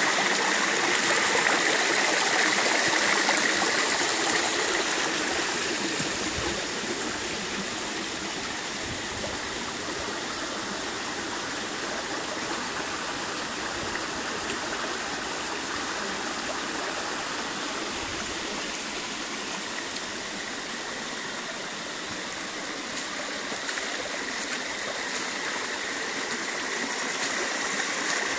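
A small stream running over flat rock slabs, the water splashing down low cascades in a steady rush. It is louder at the start, quieter through the middle and rises again near the end.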